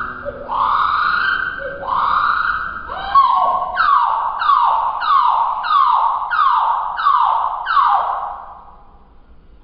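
Domestic canary singing: a few long notes that sweep up and hold, then, from about four seconds in, a run of about seven quick falling swoops, fewer than two a second, before the song stops near the end.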